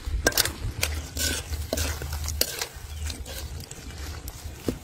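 A metal ladle stirring shrimp and mushrooms in a pan, with irregular clicks and scrapes of metal on metal over a steady low rumble.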